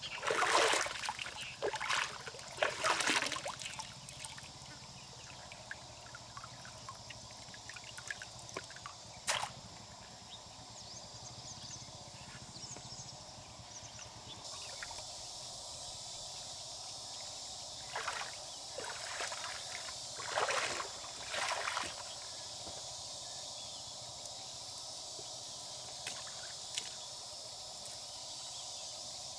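Water sloshing and trickling in a few short bursts, with a single sharp click partway through, over a steady high hiss.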